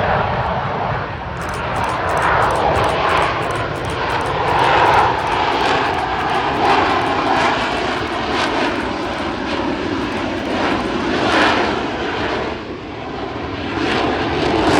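Aircraft engines running loud as planes fly the airshow display, the noise swelling and easing as they pass.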